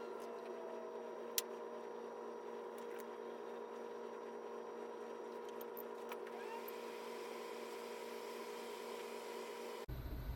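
Steady electrical hum of running bench equipment at a micro-soldering station, with a sharp small click about a second and a half in and a few fainter clicks later. Near the end the background changes abruptly to a lower rumble.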